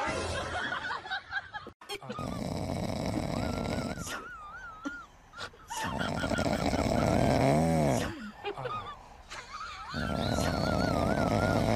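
A cat snoring while asleep, in loud breaths about one every four seconds. A high wavering whistle-like tone runs over some of the breaths.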